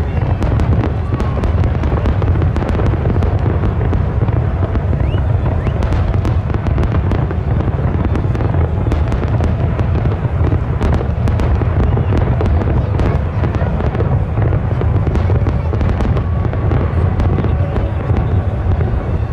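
Fireworks display: a dense, continuous barrage of aerial shells bursting, with many sharp cracks and bangs over a steady low rumble.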